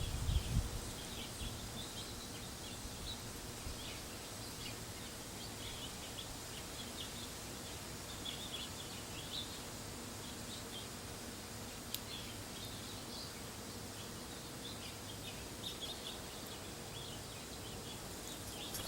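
Small birds chirping, many short high calls scattered throughout over a steady background hiss. Low rumbling thumps in the first second and a single sharp click about twelve seconds in.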